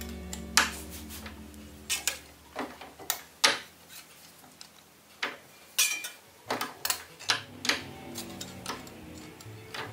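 Sharp metallic clicks and clinks at irregular intervals, about a dozen, as a thin brass strip is punched and handled in a bench turret punch, with a steel wrench knocking against the metal.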